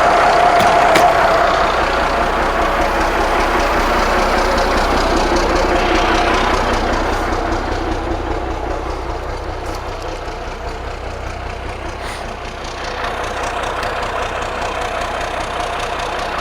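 Diesel engine of a 1983 Kenworth K100 cabover truck running steadily as it warms up after a start, easing to a quieter idle about halfway through.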